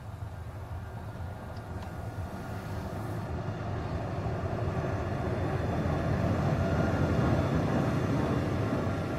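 ČD class 242 electric locomotive running light and passing close by, its wheels and running gear growing louder as it approaches, loudest about seven seconds in.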